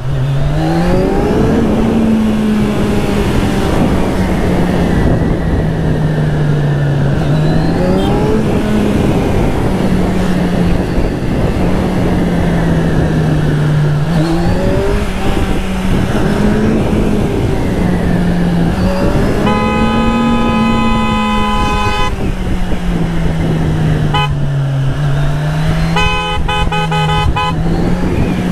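Kawasaki Z1000SX inline-four engine running, its pitch rising and falling repeatedly with the throttle, over a steady rush of wind and road noise. A vehicle horn sounds for about two seconds a little past the middle and again in short toots near the end.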